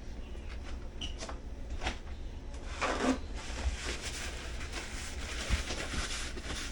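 Rustling and light clicks and knocks from handling things, over a low steady hum.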